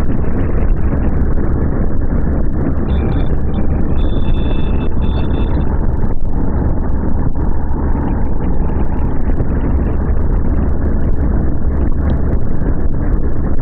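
Loud, steady wind rush and engine drone of a motorcycle at highway speed, with wind buffeting the microphone.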